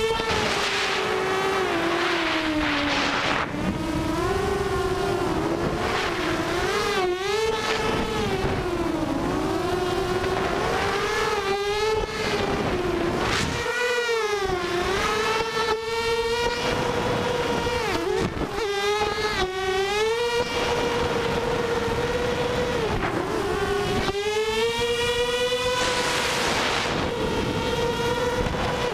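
Armattan F1-6 FPV quadcopter's motors and propellers whining in flight, heard from its onboard camera, the pitch rising and falling with the throttle and dipping sharply a few times, over a steady hiss.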